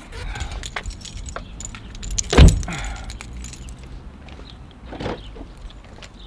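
A car door slammed shut about two and a half seconds in, a single loud thud. Light rattling clicks come before and after it, and a softer knock about five seconds in.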